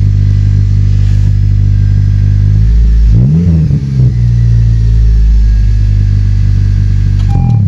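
Honda Civic Si's four-cylinder engine idling through a new Invidia N1 cat-back exhaust. It is blipped once about three seconds in, with the pitch rising and falling quickly, and starts another short rev near the end.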